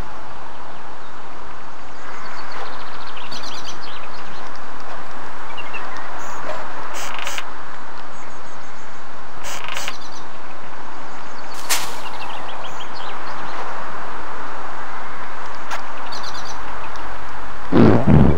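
Birds chirping now and then over a loud, steady rushing noise, with a few sharp clicks and a short low sound near the end.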